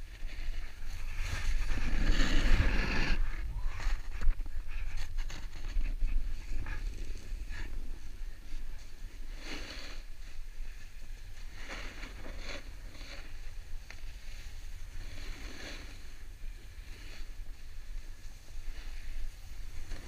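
Snowboard riding down a groomed slope, its edge scraping across packed snow in a series of turns, the biggest scrape about two seconds in, over steady wind rumble on the camera microphone.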